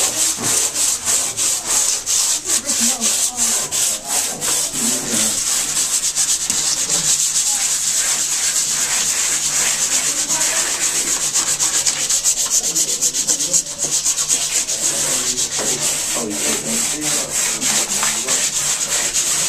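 Several people hand-sanding a wall, sandpaper rubbing back and forth in rapid overlapping strokes with a steady scratchy hiss.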